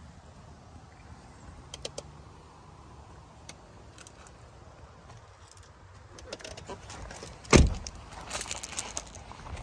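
A 2011 Range Rover's door slammed shut with one loud, solid thump about three quarters of the way through, followed by footsteps crunching on gravel. A few light clicks of handling come before it.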